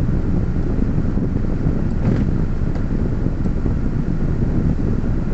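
Steady low noise inside a stopped car's cabin, from the car running in place, with a faint knock about two seconds in.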